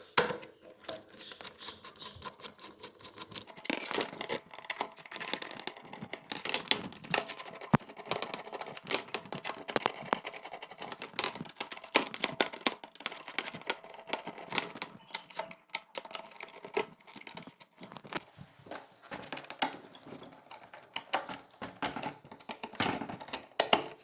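Screws being backed out from under a refrigerator door gasket with a hand screwdriver, while the gasket's plastic is handled: a run of irregular small clicks and scraping.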